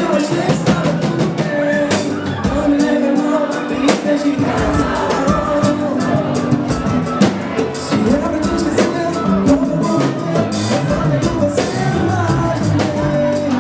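A band playing live, with steady drum and percussion strokes under singing and sustained instrument notes.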